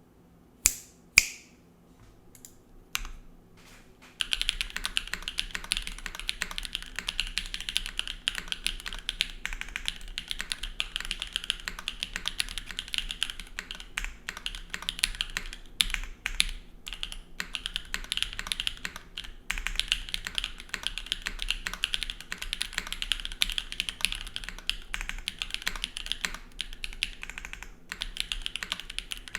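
Typing on a TYP60 SL custom mechanical keyboard with stock SWK Catmint switches, GMK keycaps and an O-ring-mounted full aluminium plate with no foam. A few separate sharp clicks come first, then dense, continuous typing starts about four seconds in.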